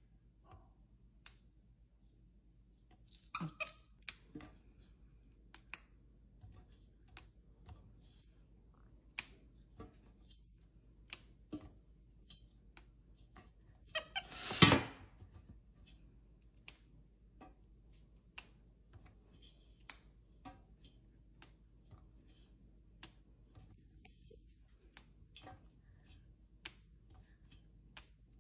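Fresh green beans being snapped by hand by a capuchin monkey: short, crisp snaps every second or two, with a louder clatter about halfway through.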